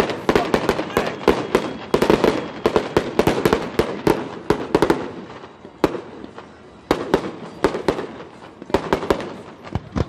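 Fireworks display going off: a rapid run of sharp bangs and crackles from shells launching and bursting. It eases off for a moment about halfway through, then picks up again near the end.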